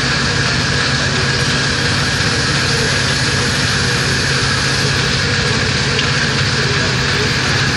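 CNC gear shaping machine running: a steady mechanical hum with a constant high whine.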